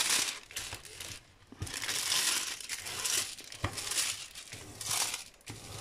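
Clear plastic protective film over a diamond painting canvas crinkling in irregular bursts as a hand smooths and handles it, with a couple of short clicks.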